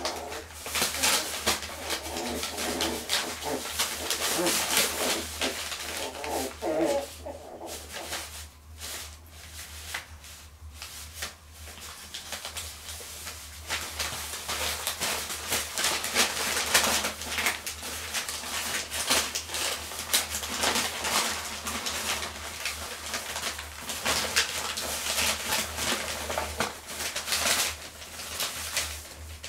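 Cotton de Tulear puppy rummaging in and tugging at newspaper, the paper crinkling and rustling in irregular bursts. Over the first seven seconds or so it mixes with small, high puppy whimpers and grunts.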